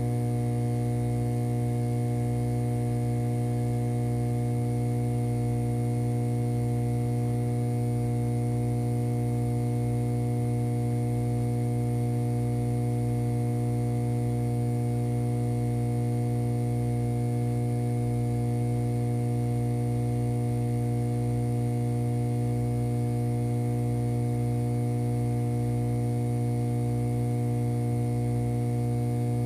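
A steady electrical hum with a strong low tone and a buzz of higher overtones, holding the same pitch without change.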